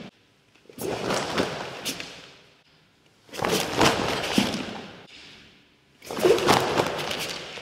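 Three swishing hits that go with karate back kicks (ushiro geri), about three seconds apart, each starting sharply and trailing off over a second or two.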